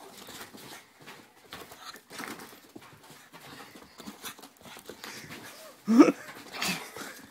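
Pug breathing hard and scuffling about while playing rough with a person's hand, with a short loud cry about six seconds in.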